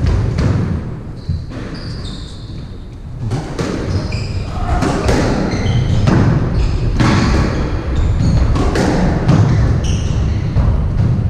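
Squash rally: the ball struck hard by rackets and smacking off the walls again and again, mixed with thudding footsteps and short high squeaks of court shoes on the wooden floor.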